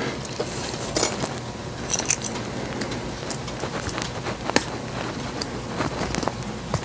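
Hand tools being picked up and handled on a cluttered metal workbench: scattered clicks, taps and light scrapes, with a sharp clack about a second in and another past the middle, over a steady low hum.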